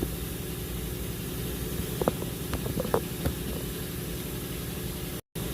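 Steady low hum of an idling engine, with a few light clicks and knocks about two to three seconds in as the new lower control arm is lifted into place.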